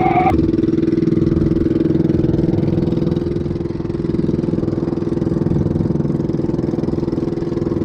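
An engine running steadily at an even speed, with a fast regular beat.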